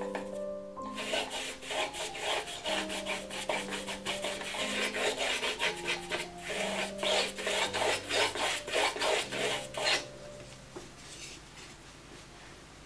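Paintbrush scrubbing acrylic paint onto rough plaster: quick, irregular scratchy strokes, several a second, that stop about ten seconds in. Background music with sustained notes plays throughout.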